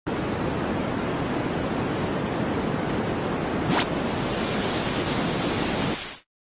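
Analog TV static hiss, steady. About two-thirds of the way through there is a short click, and the hiss turns brighter and higher. It cuts off suddenly near the end.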